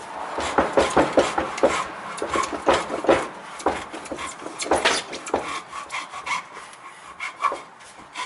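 Hand hacksaw cutting a pipe held in a bench vise: quick back-and-forth rasping strokes, about three a second, growing softer and more spaced out in the second half.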